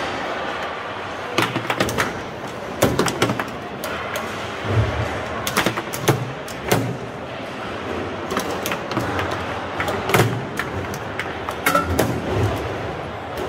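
Foosball rally: sharp, irregular clacks of the ball being struck by the plastic players and knocking off the table, a few of them loud, over steady background noise.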